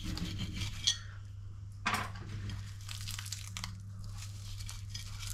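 Crisp, flaky puff pastry crackling and tearing as a knife cuts through a sausage-and-bacon pastry bake and hands pull it apart, with two sharper cracks about one and two seconds in.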